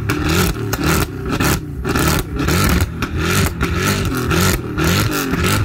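Mercedes-Benz C63 AMG's V8 engine being revved repeatedly, its pitch sweeping up and falling back about twice a second, with short dips between the blips.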